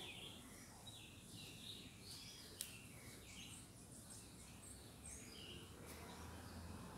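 Faint birds chirping in short, repeated calls over a low background hum, with one sharp click about two and a half seconds in.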